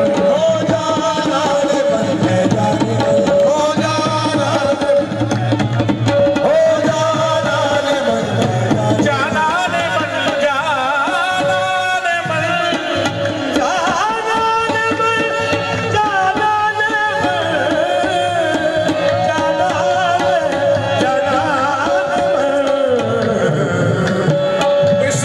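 Qawwali music: tabla drumming under a melody of long held notes and winding, ornamented singing lines.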